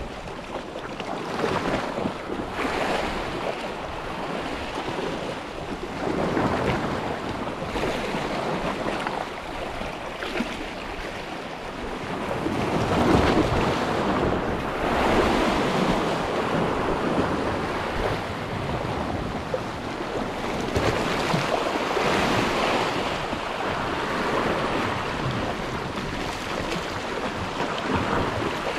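Sea waves washing in and drawing back in repeated surges, loudest about halfway through, with wind buffeting the microphone.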